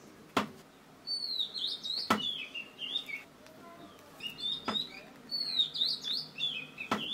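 Small birds chirping in two bouts of quick twitters that sweep up and down in pitch, with four sharp taps spread through, the loudest about half a second and two seconds in.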